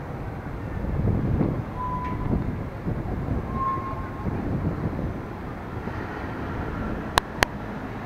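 Electric KRL commuter train running on the track, a low uneven rumble with two short high tones in the first half. Two sharp clicks close together come near the end.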